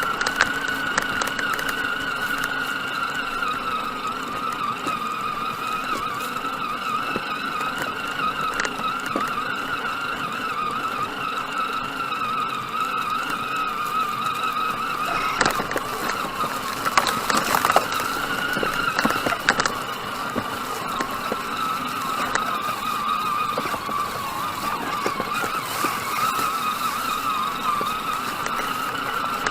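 A small electric motor whines steadily at a high pitch that wavers slightly up and down. A few knocks and bumps come about halfway through.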